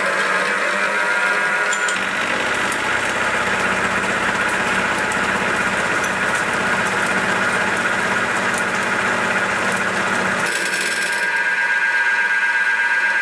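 A small milling machine drives a home-made face mill with SEHT carbide inserts through cold-rolled steel plate at a 0.5 mm depth of cut. The spindle's steady whine is joined about two seconds in by the rough, continuous noise of the inserts cutting steel. That noise stops about ten seconds in as the cutter clears the plate, leaving only the spindle whine. The cut is an easy one for the mill.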